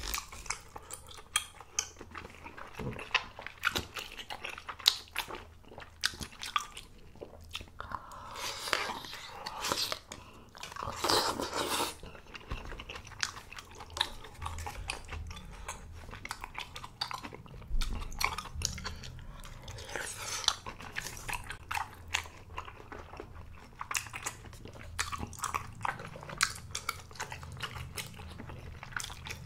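A person eating malatang close to the microphone: chewing and biting with many wet mouth clicks, and two longer slurps of noodles about a third of the way in.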